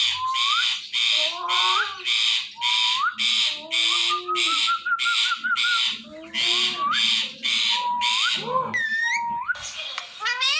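Indian ringneck parrot squawking over and over, about two harsh calls a second, with short rising whistled notes between them; the calls break off briefly about three-quarters of the way through before a last run of varied notes.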